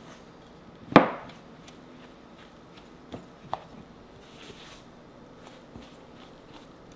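Kitchen work sounds: one sharp knock with a short ring about a second in, then two lighter clicks a few seconds later.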